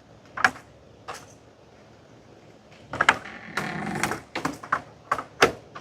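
Handling noise from a small plastic drone being rotated in the hands for compass calibration: scattered light clicks and knocks, with a short burst of rustling and clicking about three to four seconds in.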